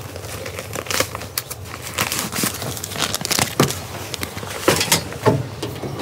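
Paper documents rustling and crinkling as they are handled and sorted, with irregular crackles and a few sharper ticks.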